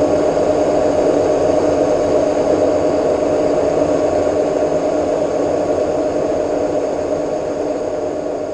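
Metal-turning lathe running with a steady whir, slowly growing quieter near the end.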